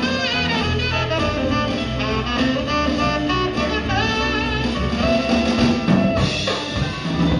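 Jazz band playing, with a saxophone carrying a bending melody line over a drum kit.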